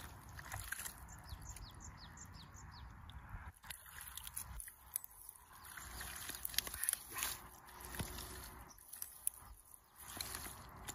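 Bare hands digging and scooping in wet mud, with irregular soft squelches and slaps, as an eel burrow is dug out.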